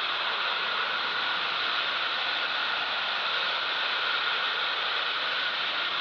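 Waterfall rushing: a steady, even hiss of falling water with no change throughout.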